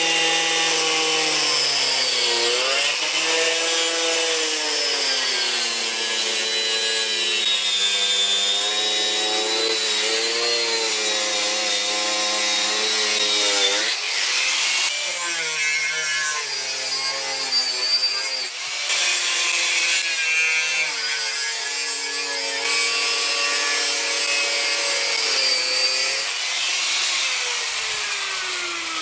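Electric angle grinder with a cutting disc cutting into an LCD monitor screen: a hissing grind over a motor whine whose pitch sags and recovers as the disc bites. There is a short break about halfway through, and near the end the grinder is switched off and winds down.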